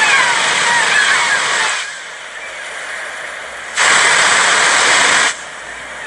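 Sea surf washing on a beach, a steady rush of water noise with birds chirping over it. The surf drops away about two seconds in, then surges loud again for about a second and a half, starting and stopping abruptly.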